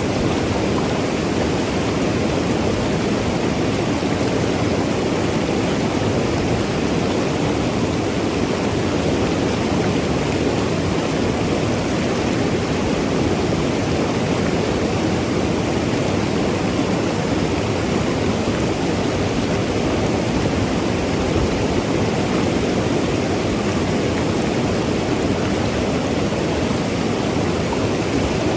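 Mountain river flowing over rocks: a steady, even rush of water with a gurgling wash.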